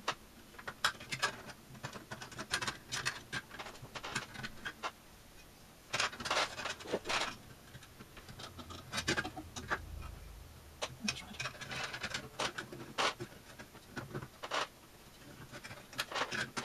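Metal cabinet parts and chassis of an RF signal generator being handled and fitted together: scattered clicks and taps with a few short scrapes, the longest about six seconds in.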